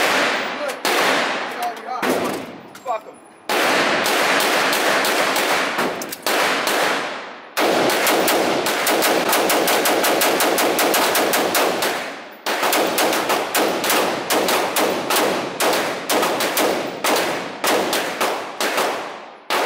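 AR-style rifle firing rapidly in an indoor range, each shot trailed by room echo. A few shots come first, then two long, very fast strings of several seconds each, then quick separate shots at about four a second.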